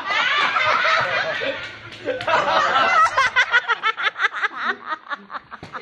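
People laughing hard: a dense burst of laughter, then from about two seconds in a run of quick, repeated 'ha-ha' beats.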